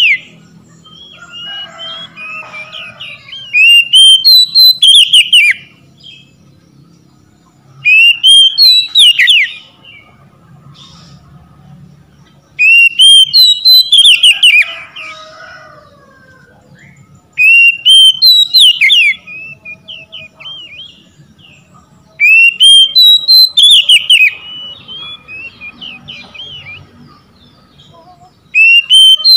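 Oriental magpie-robin (kacer) singing loud whistled song phrases: each a quick run of rising and falling whistles lasting about two seconds, repeated every four to five seconds.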